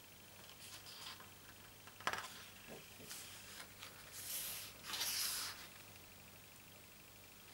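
Photobook pages being handled: a page is turned with a paper rustle and a crisp snap about two seconds in, then two longer swishes of hands sliding over the paper to flatten the new spread.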